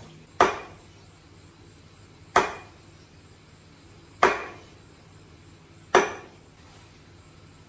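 Cleaver chopping the cooked duck on a wooden chopping board: four heavy single chops about two seconds apart, each ringing briefly.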